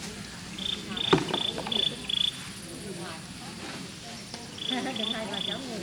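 Cricket chirping in short high-pitched pulses, about three a second, in a run of five and then a run of three. A sharp click about a second in.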